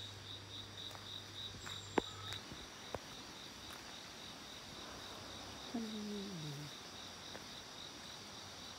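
Crickets chirping in a steady, even high-pitched pulse, several times a second. A low hum stops about two seconds in, there are a couple of sharp clicks, and a short falling tone comes about six seconds in.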